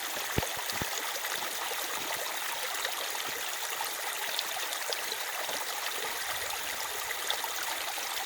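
Mountain stream rushing and splashing in a steady stream of noise, with two short knocks about half a second in.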